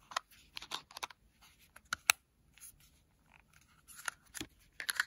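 Small plastic travel watercolour palette handled in the hands: scattered light clicks and rustles of plastic, with a few sharper clicks, one about two seconds in and another near the end.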